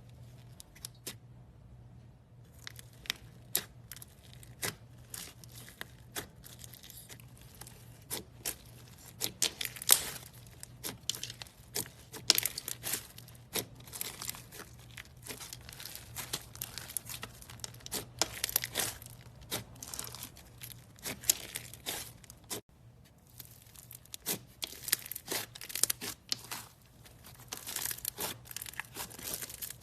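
Slime being squeezed and poked by hand, giving a dense run of sharp crackling clicks and pops at irregular spacing, with a faint steady hum underneath. The crackling breaks off briefly about three-quarters of the way through, then starts again.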